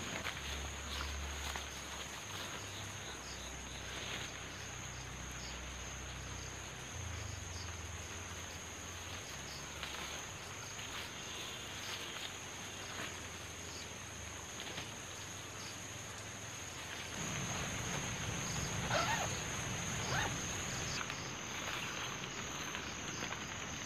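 Forest ambience dominated by a steady, high-pitched insect drone, with rustling and a few light knocks that grow louder over the last several seconds.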